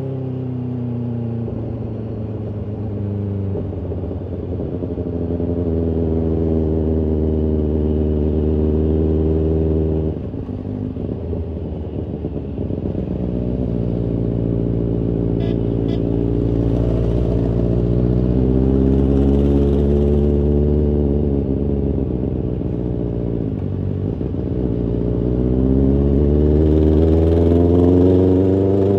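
BMW S1000RR's inline-four engine and exhaust heard from the rider's seat at modest revs in traffic. The pitch falls at first, then climbs slowly, drops suddenly about ten seconds in, climbs again, dips briefly and rises once more near the end as the bike speeds up and slows.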